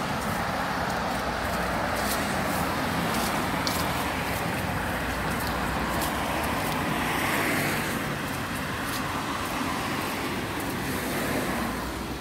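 Steady road traffic noise from cars on a nearby street, swelling as a vehicle passes about halfway through.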